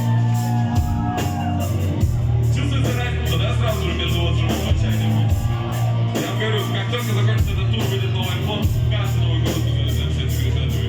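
Loud live hip-hop music over a concert sound system: heavy held bass notes under a steady, regular beat.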